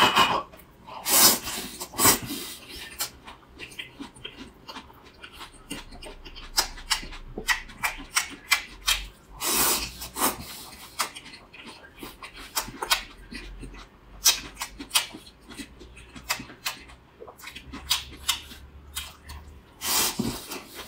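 Close-up eating sounds: wet chewing, lip smacks and slurps of crisp cold shredded potato and rice, with a few louder slurps among rapid small mouth clicks.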